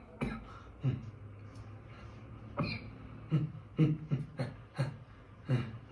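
A man's string of short, separate coughs and throat-clearing noises, about eight in the space of a few seconds, from a cough that has been troubling him lately.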